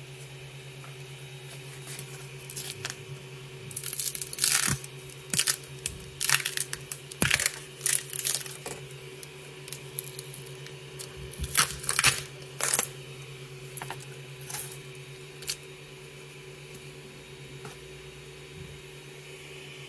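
Metal spatula scraping and prying a 3D-printed shoe insert off the printer's bed: a run of sharp scrapes and cracks through the middle, over a steady low hum.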